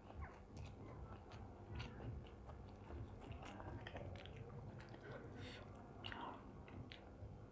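Close-miked chewing of a mouthful of noodles, with many small wet mouth clicks and the soft scrape of a metal fork in a foil tray as more noodles are twirled up.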